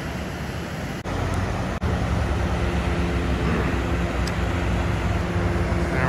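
Road traffic noise: a steady rush with a vehicle engine's low, even hum setting in about two seconds in.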